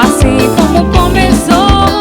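A band playing Pará melody (tecnomelody) music: a steady driving beat with bass under a gliding lead melody line.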